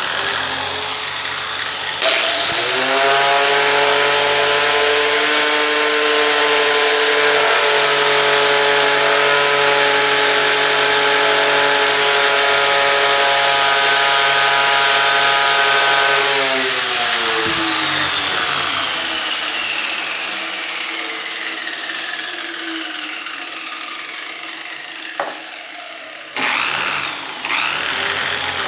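Adapted electric drill/screwdriver in a bench-drill stand, working a piece of wood with a steady rough cutting noise. Its motor whine rises as it spins up about two seconds in, runs steady, then winds down, and rises again as it is started up near the end, with a single click shortly before.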